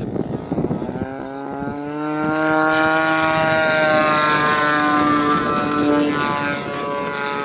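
Seagull Edge 540 radio-controlled plane's 30cc two-stroke engine and propeller running in flight: the engine note grows louder about a second in, stays strong through the middle, then drifts lower in pitch and softer toward the end as the plane passes.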